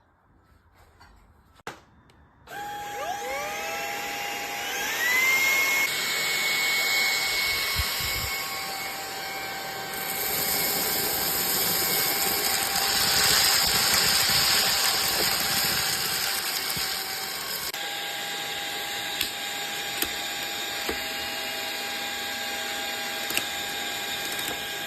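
A cordless handheld vacuum cleaner is switched on about two seconds in. Its motor whine rises in pitch as it spins up, then it runs steadily with a high whine and rushing air. The sound shifts in level a few times, and there are a few light clicks near the end.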